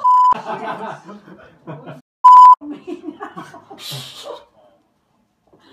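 Two short, steady censor bleeps about two seconds apart, the second one louder, with startled voices and laughter between them.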